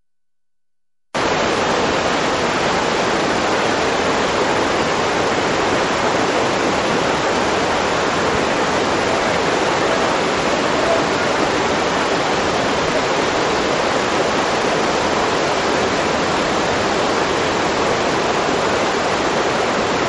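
Steady, loud rush of fast-flowing water, like a river running over a weir, cutting in abruptly about a second in and holding unchanged.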